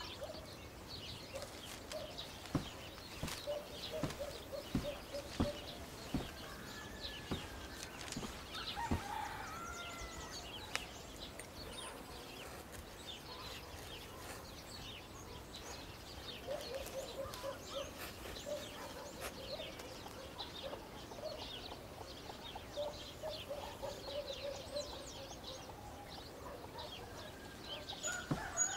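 Hens clucking in short runs of quick repeated notes, with small birds chirping now and then.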